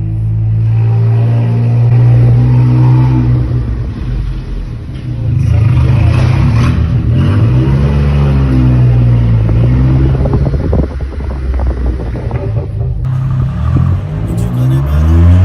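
VW Polo engine running loud through its exhaust with the exhaust valve open, held at steady revs at first, then revved up and down several times around the middle and again near the end.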